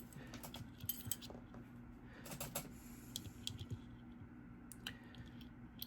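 Faint, scattered clicks and light taps of small screws and plastic case parts being handled and set down on a desk.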